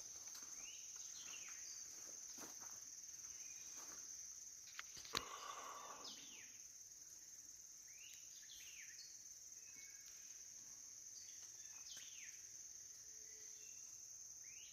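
Faint woodland ambience: a steady high insect drone, with birds giving short downward-sweeping calls again and again. A single sharp click about five seconds in.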